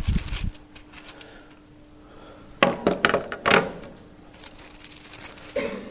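Pages of a Bible being leafed through by hand: a dull bump as the book is handled, then a few quick rustles and knocks about three seconds in, over a faint steady hum.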